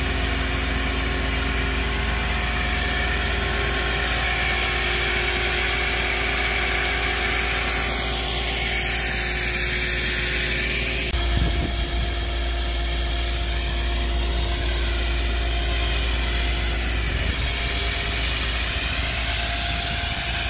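Hydraulic excavator's diesel engine running steadily under a constant hiss, with no hammering or impacts. The drone shifts slightly in pitch and weight about halfway through.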